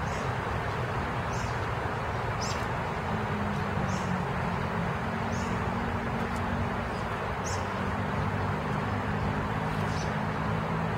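Steady rain falling on a garden, a continuous even hiss, over a low steady hum. A short high chirp, likely a bird, repeats roughly every second or so throughout.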